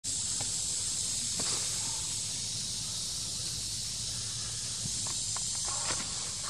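Forest ambience: a steady high hiss of insects with a low rumble beneath, and a few faint rustles and clicks in the leaf litter.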